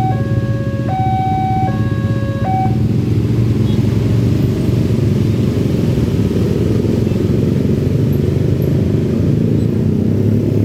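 Railway level-crossing warning siren alternating between a high and a low tone, each held a little under a second, cutting off about two and a half seconds in. Under it and after it, a steady din of motorcycle and car engines in road traffic.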